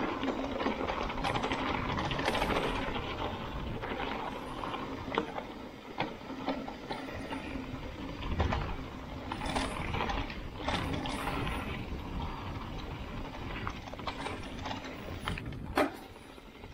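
Mountain bike rattling and clicking along a rough singletrack descent, with several sharp knocks from hits on the trail.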